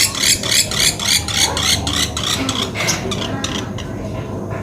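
A small bird, the pelatuk beras or sampit, calling a fast even series of sharp chirps, about four a second, that thin out after about two seconds. A steady low hum runs underneath.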